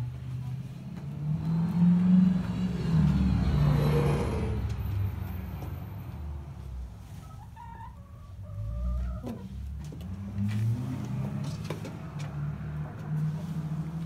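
An uneven low rumble runs throughout, with chicken calls, a short run of rising and falling notes, a little past the middle.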